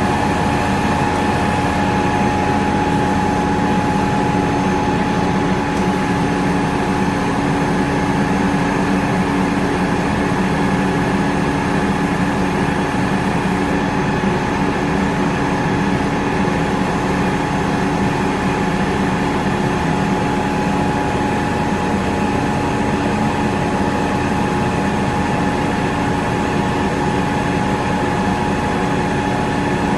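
Heavy diesel engine of construction machinery idling steadily, with a constant whine over it.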